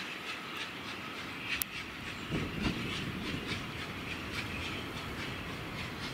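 Steam-hauled train running, with a steady rumble and a regular clicking beat about twice a second.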